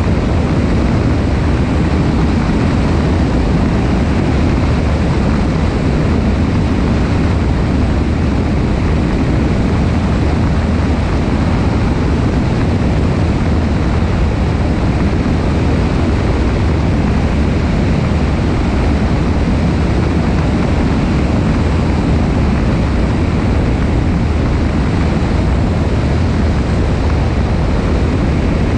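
Cessna 172 single-engine light aircraft in flight: a steady engine and propeller drone under a constant rush of air over the wing-mounted camera's microphone.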